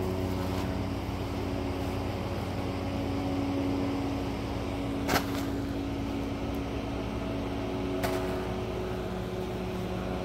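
A steady machine hum with a few low, even tones, with two short sharp clicks, about five and eight seconds in.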